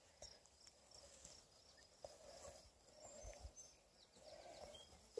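Near silence, with faint soft rustling as a week-old beagle puppy is handled on a knitted blanket.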